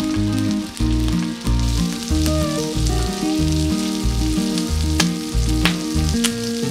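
Food sizzling and frying in hot oil, a steady hiss with sharp pops about five, five and a half and six seconds in, over background music with a steady bass beat.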